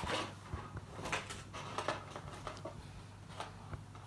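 Hands handling the small parts of a star projector lamp kit, making irregular light clicks and rustles.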